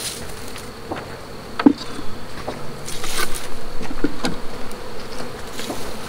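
A mass of honeybees buzzing in a dense, steady hum from a hive torn open by a bear, the colony spilled out over the ground. A few sharp knocks cut through, the loudest nearly two seconds in.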